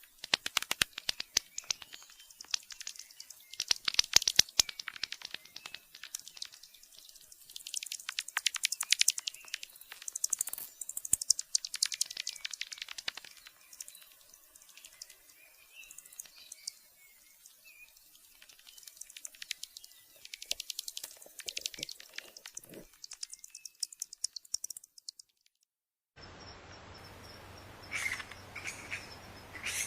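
Bats squeaking and chittering: rapid high-pitched chirps and clicks in bursts, loud and dense for most of the stretch. After a brief silence, a different recording starts with a steady hiss and a few squeaks near the end.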